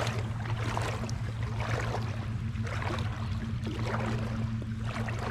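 Boots wading through shallow creek water, with irregular splashing and sloshing, over a steady low hum.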